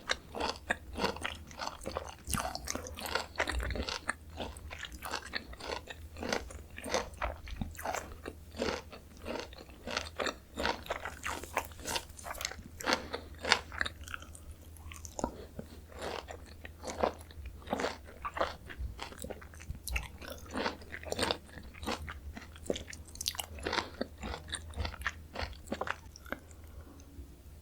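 Close-miked biting and chewing of Jeju mandarin orange segments: a dense, irregular run of small quick clicks that goes on without a break. A low steady hum sits beneath it.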